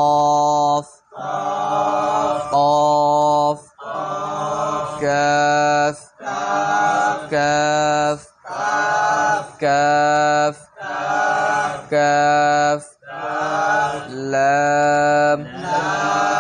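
A man's voice chanting the names of Arabic letters in a drawn-out, sing-song recitation: a string of held syllables on a steady pitch, roughly one a second with short breaks between, as in a Quran letter-recitation drill.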